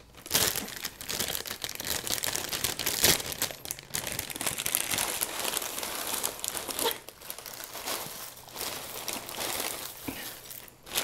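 Plastic cereal bag liner crinkling and rustling as it is handled and squeezed, with irregular crackles throughout.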